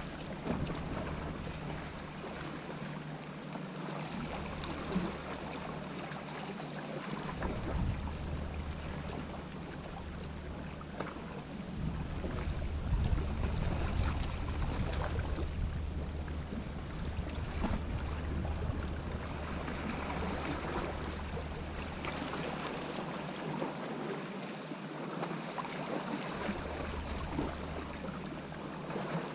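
Wind buffeting the microphone, with a low rumble that comes and goes, over calm sea washing around shoreline rocks.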